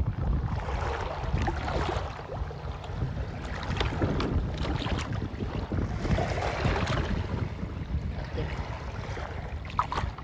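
Wind buffeting the phone's microphone, a steady low rumble with gusty noise over it.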